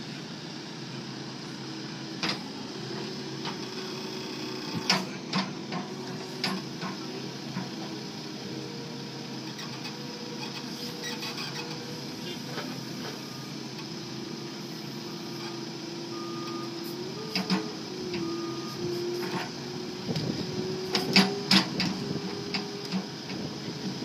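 New Holland B95C backhoe loader's diesel engine running with the hydraulics working the boom and bucket, its hum rising and falling in pitch as the load changes. Occasional sharp knocks, with a cluster near the end.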